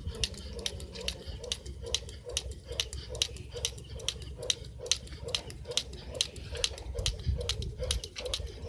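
Plastic jump rope slapping a wet concrete path once per turn, in a steady quick rhythm of sharp slaps, as it is skipped barefoot.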